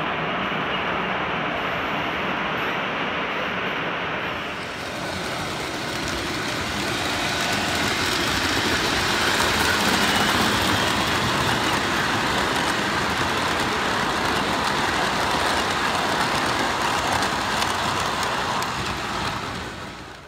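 Model trains running on a layout: the steady rumble and rattle of the locomotive's motor and metal wheels rolling over the track, with a fine rapid clicking. The sound shifts about four seconds in as a second train passes close by, and fades out at the end.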